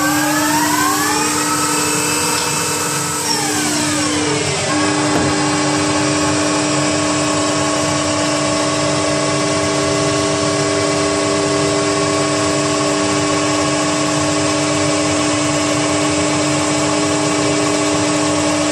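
Hunor PNC712 CNC lathe running. Its machine whine climbs in pitch, holds, then falls away about four seconds in, as the spindle speeds up and slows down. It then settles into a steady whine over a constant hum.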